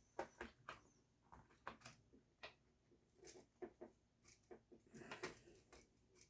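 Faint, irregular clicks and light taps of plastic marker parts being handled, about a dozen scattered small knocks.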